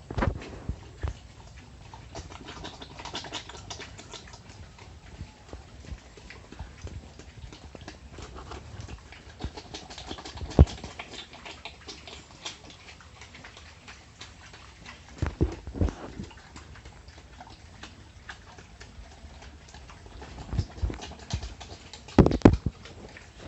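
Pigs moving about: scattered taps and clicks of trotters and bodies, with a few louder knocks.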